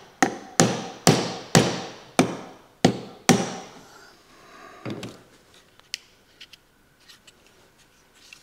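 Hammer tapping on a reciprocating saw's housing at about two blows a second, each with a short ring, driving a part further down into place. The blows stop about three seconds in, followed by a few softer handling knocks and a click.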